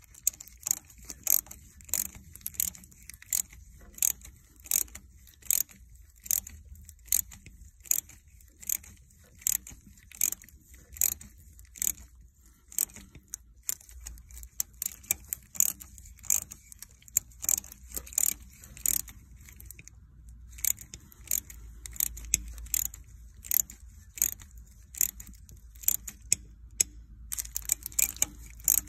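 Socket ratchet clicking in quick runs, over and over, as it is swung back and forth to turn a thread-cutting tool into a cylinder head bolt hole, with a couple of short pauses along the way.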